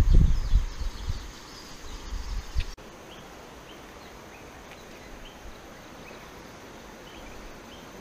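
Low, uneven rumbling of wind on the microphone for the first few seconds, cut off sharply. Then a steady outdoor background of rushing river with faint, short high chirps from birds or insects every second or so.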